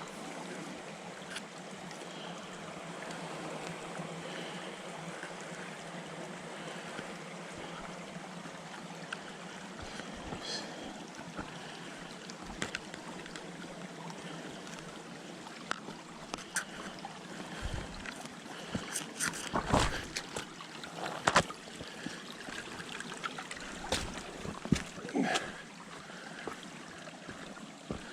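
Steady hiss of a flowing creek. In the second half it is broken by irregular crunches of footsteps on the dirt trail.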